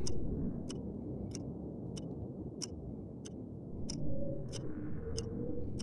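Regular ticking, about three ticks every two seconds, over a steady low rumble. A faint hum rises about four seconds in.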